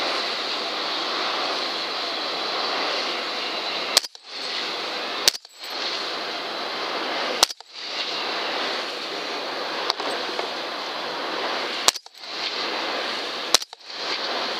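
Six suppressed rifle shots from a .300 HAM'R rifle fitted with an FPM Dirty Dachshund suppressor, fired at irregular intervals of one to three seconds, the fourth fainter than the rest. Between shots there is a steady hiss, which drops away for a moment after most shots.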